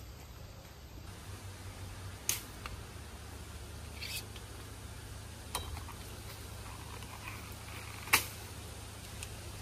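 Taro stalks being cut by hand: a few sharp snaps several seconds apart, the loudest near the end, over a low steady rumble.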